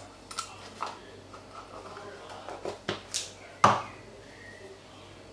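Small clicks and knocks of spice jars and lids being handled on a kitchen counter, with one sharper knock a little past three and a half seconds in.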